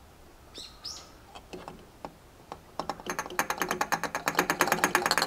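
Fuel additive glugging out of an upended bottle into a truck's fuel filler neck: a few scattered gurgles at first, then from about three seconds in a fast run of glugs as the bottle empties.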